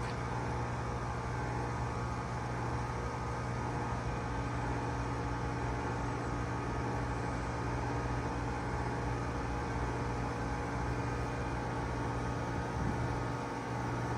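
Bard 3-ton wall-hung heat pump running steadily, a continuous mechanical hum with several steady tones and a strong low drone.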